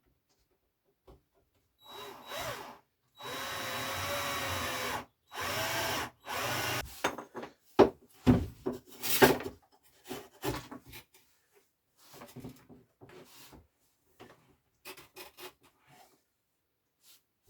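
A cordless drill driving screws into wood in four short runs, its motor pitch dipping and rising under load. This is followed by several loud knocks and then lighter knocks and scrapes of wood being handled.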